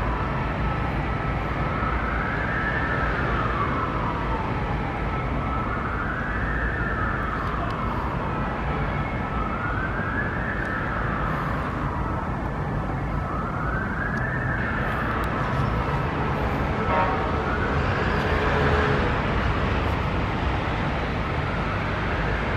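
A siren wailing in a slow, even rise and fall, about one cycle every four seconds, over a steady low rumble of traffic.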